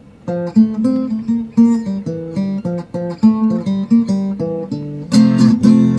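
Restored 1930s–40s SS Stewart arch-top acoustic guitar being played: picked notes and chords, turning to louder strumming about five seconds in. Its tone is very boomy.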